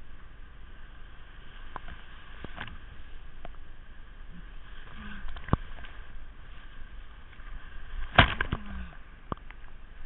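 Whitewater rapids rushing steadily around a kayak, with sharp knocks and splashes from the paddle strokes; the loudest is a cluster of knocks about eight seconds in.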